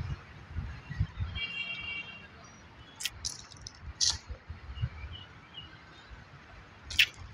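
Outdoor park ambience: irregular low thuds of footsteps and camera handling, with scattered short bird chirps. There are a few sharp high calls or clicks about three, four and seven seconds in.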